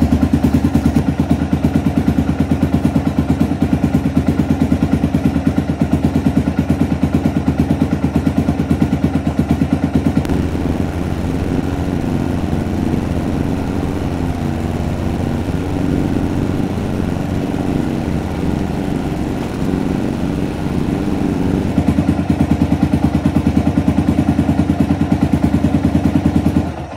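Yamaha motorcycle engine idling steadily on its stand during an automatic warm-up, then cutting out by itself near the end, once the radiator is hot and the thermoswitch relay kills the ignition.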